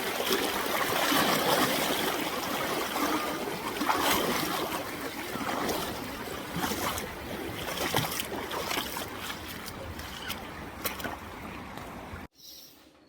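River water rushing and splashing, an irregular noise that cuts off suddenly near the end.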